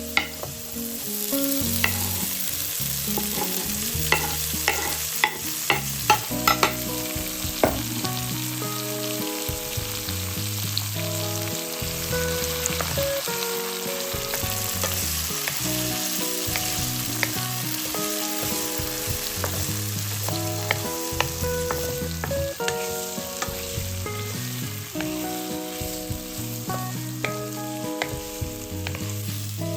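Food sizzling and frying in a pan, stirred with a utensil that clicks and scrapes against the pan, most busily in the first several seconds. A slow background melody plays underneath.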